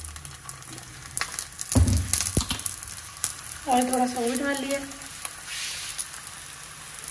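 Oil sizzling and crackling under a sheermal flatbread frying on a hot non-stick tawa over low heat, with a dull knock about two seconds in.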